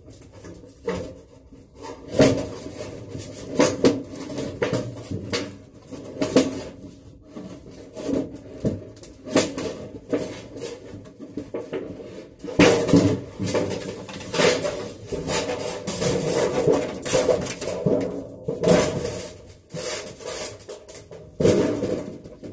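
Corrugated zinc roofing sheet being torn apart by hand along a snipped mark, the metal crackling and clanking in many irregular sharp strokes as it rips and flexes.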